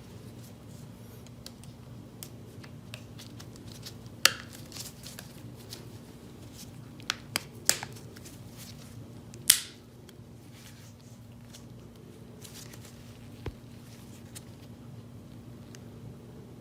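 Hands handling a mobile phone and its packaging: a few sharp clicks, a quick cluster of three near the middle, and a short scrape a little later, over a steady low hum.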